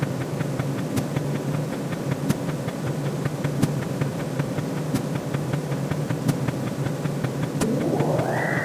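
Electronic sound effects: a steady low droning hum with a sharp tick about every second and a quarter. A rising sweep starts near the end and levels off high.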